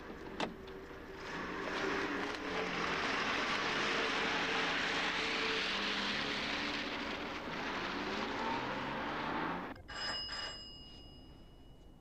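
A car drives by, its engine and road noise swelling and then holding steady before cutting off abruptly about ten seconds in. A few clicks and a short high bell ring follow.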